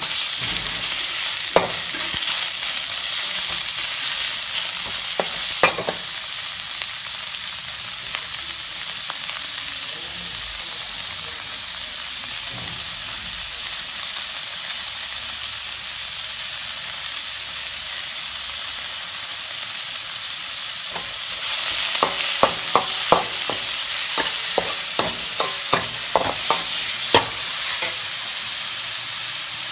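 Sliced beef dropped into hot oil in a wok, starting a loud, steady sizzle all at once. A spatula stirs and scrapes it around the wok, with a few sharp knocks early on and a quick run of them in the last third.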